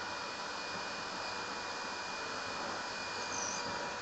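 Electric drill running at a steady speed with a constant motor whine, boring bolt holes through the hinges and the wooden door.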